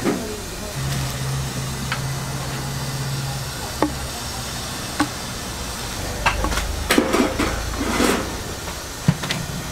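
Large kitchen knife cutting braised pig's trotters on a wooden cutting board: scattered sharp knocks of the blade on the board, with a quick flurry about six to eight seconds in, over a steady hiss.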